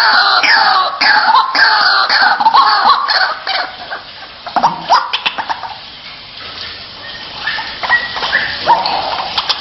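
White-breasted waterhen (ruak-ruak) calling: a fast run of repeated harsh 'kruak' calls, two or three a second, for the first three seconds or so, then fainter, scattered calls.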